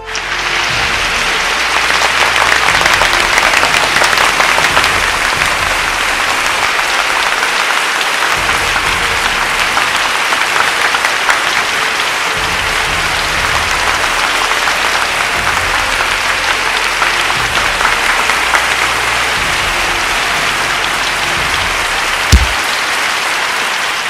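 Sustained applause, many hands clapping steadily, with one short thump about 22 seconds in.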